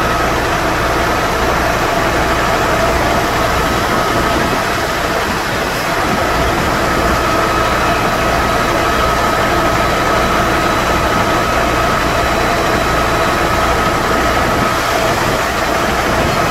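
Fire engine's engine and water pump running steadily to feed the hose lines: a constant low drone with a steady high whine over it.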